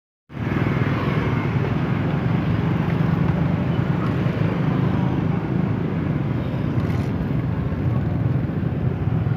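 Street traffic: motorcycle and car engines running steadily close by, a continuous low hum.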